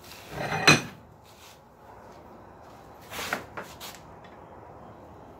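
Iron hinge parts being handled and worked in a bench vise: a rattling scrape ending in a sharp metal clink under a second in, then a shorter rasp and a couple of light clicks a little after three seconds, as the forged hinge is turned back and forth on its pintle to wear the two in together.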